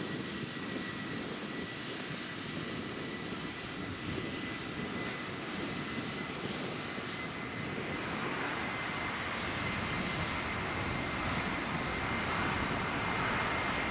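Jet engines of an Alitalia Airbus A330-200 running, a steady roar with a thin high whine that rises slightly, growing louder from about halfway through.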